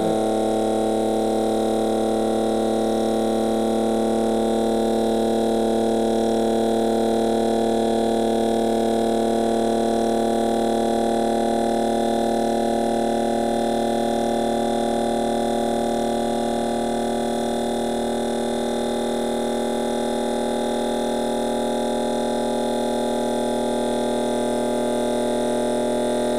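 Small electric motor running steadily on supercapacitors, giving a continuous electrical hum of several steady tones.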